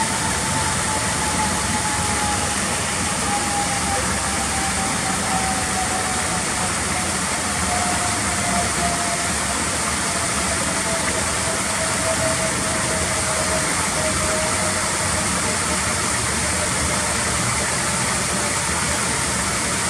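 Small pond waterfall splashing steadily as water spills over a stone ledge into the pool. Under it runs a thin whine that slowly falls in pitch.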